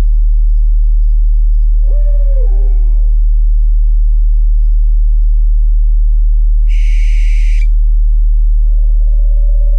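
Owl calls laid over a loud, steady low tone from a binaural/isochronic meditation track. There is a descending, wavering call about two seconds in, a short hissing screech about seven seconds in, and a held call with a pulsing overtone starting near the end.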